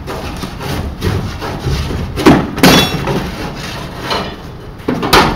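Scraping and rubbing broken by sharp knocks: two loud ones close together a little after two seconds, and another near the end.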